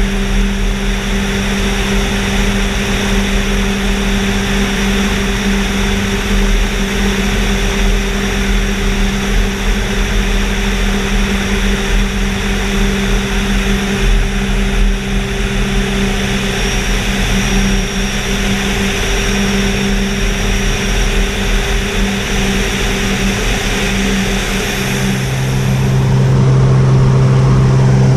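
Small single-engine plane's piston engine and propeller droning steadily in flight, under heavy wind rush through the open jump door. Near the end the drone drops to a lower pitch and gets louder.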